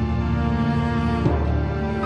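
Background music from the drama's score: sustained held chords that shift to a new chord about a second in.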